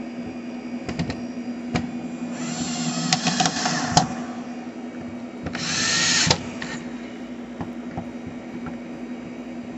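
Cordless drill-driver driving the long mounting bolts of a deadbolt lock, run in two short spells; the second climbs in pitch and level and stops abruptly as the bolt seats, with a few clicks of the tool and lock hardware between.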